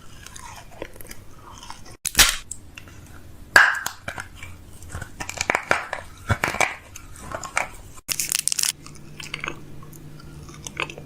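A person biting into and chewing crunchy food close to the microphone, with irregular crunches; the loudest come about two seconds and three and a half seconds in.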